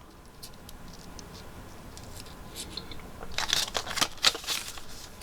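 Small gun parts and their packaging being handled on a bench: a few faint clicks, then about a second and a half of quick scratchy rustles and taps a little past halfway.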